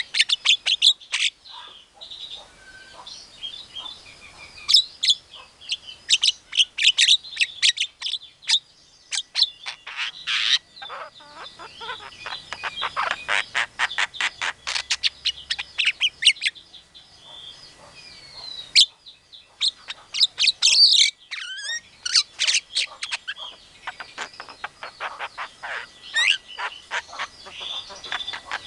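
Javan myna singing: fast runs of sharp chattering and clicking notes mixed with short whistles, in bursts with brief pauses.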